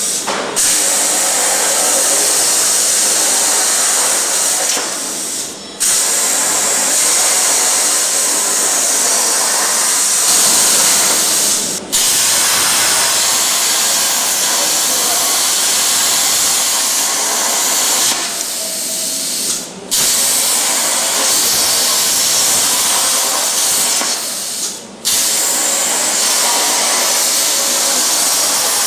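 Plasma torch cutting steel pipe: a loud, steady hiss of the plasma arc and air jet, broken four times by brief gaps.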